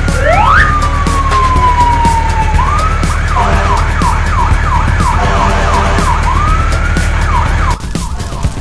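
Emergency vehicle siren: one long falling wail, then a fast run of short falling yelps, about two or three a second, over a steady low rumble. The rumble cuts out suddenly near the end.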